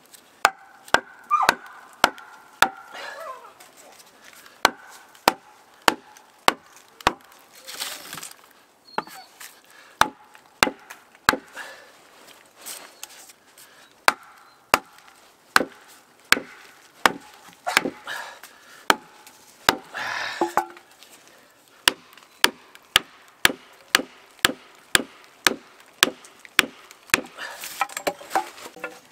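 The back of an axe hammering over and over on wooden wedges and a birch log to split it lengthwise, sharp strikes about one to two a second. Three longer crackling bursts of the wood tearing along the split come about a quarter in, about two-thirds in and near the end.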